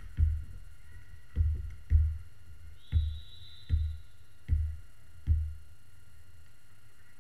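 A volleyball being bounced on a hardwood gym floor before a serve: about seven dull thumps at uneven spacing. A referee's whistle sounds for about a second around three seconds in.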